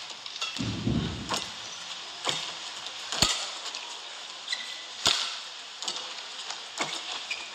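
Badminton rally: shuttlecock struck back and forth with rackets, a sharp crack roughly once a second, with a low thud about a second in.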